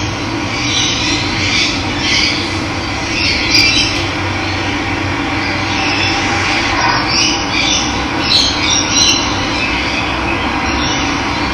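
Steady rush of running water, with birds chirping and calling over it every second or so.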